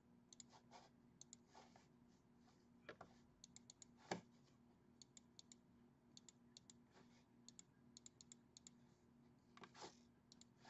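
Faint, scattered clicks of a computer mouse and keyboard, often in quick runs of two to four, with a slightly louder knock about four seconds in.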